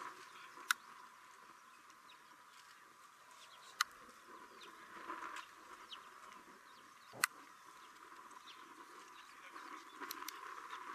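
Faint outdoor ambience with scattered short bird calls, broken by three sharp clicks.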